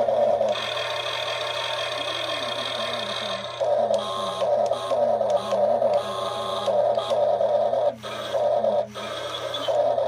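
Huina remote-control toy excavator running on its electric motors, with a repeating beep-like tone pulsing about three times a second through the second half.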